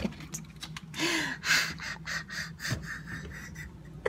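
A woman laughing breathily in a few short bursts, with gasping breaths between them.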